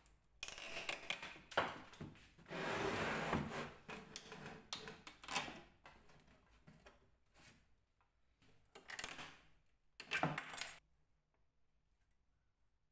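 End-cutting pincers working old rusty nails out of a wooden suitcase's corner: irregular scraping and metallic clinking with wood creaking. The longest stretch comes in the first few seconds, then two short bursts later.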